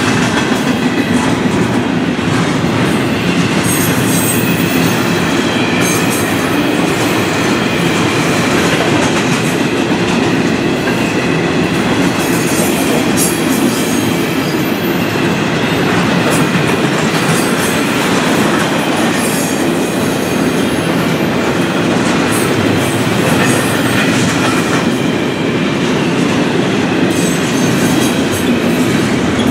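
Florida East Coast Railway intermodal freight train's container and trailer cars rolling past close by: a loud, steady rumble and clatter of wheels on rail, with a high wheel squeal now and then.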